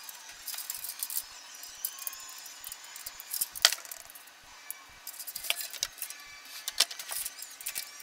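Scattered clicks and light knocks of computer hardware being handled, a clear plastic case fan being fitted to a steel PC case, with one sharp click about three and a half seconds in.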